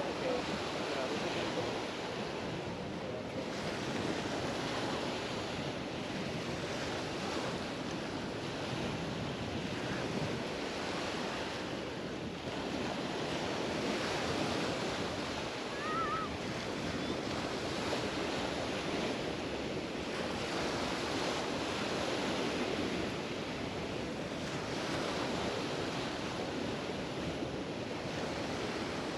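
Mediterranean surf washing onto a sandy beach, a steady rush that swells and eases every few seconds as waves break and run up the shore.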